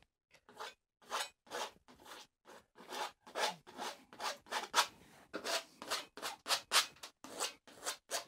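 Brisk rubbing strokes on an oil painting as it is worked by hand, coming about two to three a second, sparse at first and quicker and louder after a few seconds.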